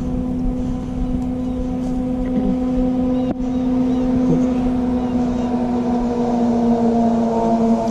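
A motor or engine running steadily with a constant hum, its pitch dipping slightly near the end, over a low rumble.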